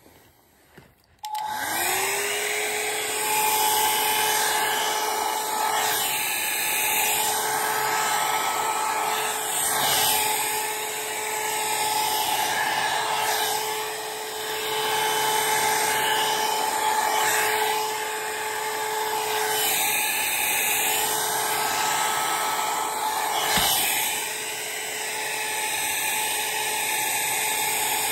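Handheld hair dryer switched on about a second in, its motor spinning up fast to a steady whine over the rush of air. It runs on while being worked through the hair, swelling and dipping in loudness, with one sharp knock near the end.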